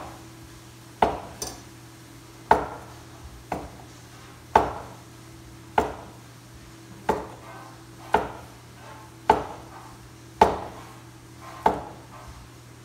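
Heavy kitchen knocks, about ten at an even pace of roughly one a second, each ringing briefly, with a few lighter knocks between them.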